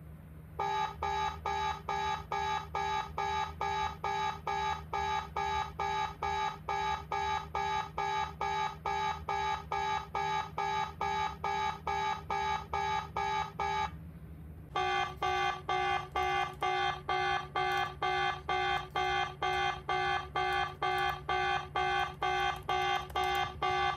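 Fake security-breach alarm from a hacker prank web page played through a laptop's speakers: a pitched electronic beep repeating about two and a half times a second. It breaks off briefly about halfway, then starts again at the same pace.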